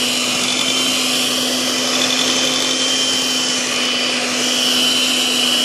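Electric hand mixer running steadily, its beaters churning through thick cake batter in a bowl: a constant motor hum with a high whine.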